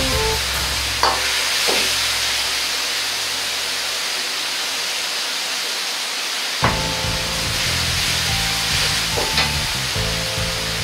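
Liver, garlic chives, bean sprouts and carrot sizzling steadily in a hot wok with broth and seasonings just added. A few sharp clanks of a metal ladle striking the wok, the loudest about a second in and again about two-thirds of the way through.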